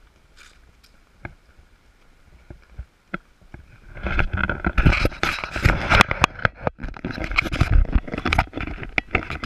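Camera being handled: a few faint clicks, then from about four seconds in loud, dense rubbing and knocking against the microphone.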